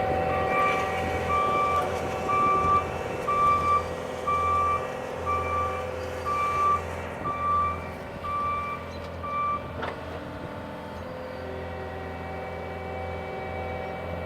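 Cat 272D skid steer's diesel engine running steadily while its backup alarm beeps about once a second as it reverses; the beeping stops about ten seconds in, with a single knock near that point, and the engine runs on.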